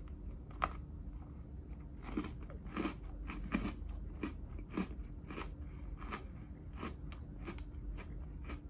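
A Birthday Cake Oreo, a crisp chocolate sandwich cookie, bitten and chewed close to the microphone: a crunching bite, then a run of irregular crunches about two a second as it is chewed.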